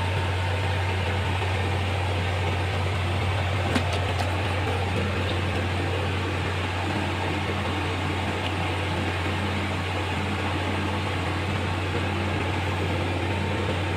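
Steady low drone of a running engine or generator set, unchanging throughout, with one short click about four seconds in.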